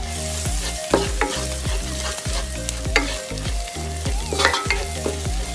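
Sliced onions frying in oil in a frying pan, sizzling steadily while a spatula stirs them, with scattered scrapes and knocks of the spatula against the pan.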